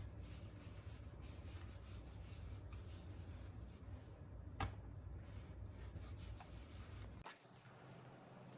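Faint room sound with a low hum and light rubbing or handling noises, broken by a single sharp click a little past halfway.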